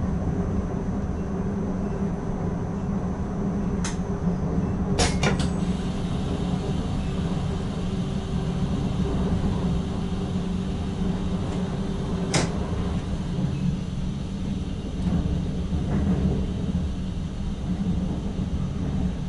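Cab of an NS ICM electric multiple unit under way: steady rumble of the running train with a low hum. A few sharp clicks cut through it: one about four seconds in, three in quick succession a second later, and another near twelve seconds.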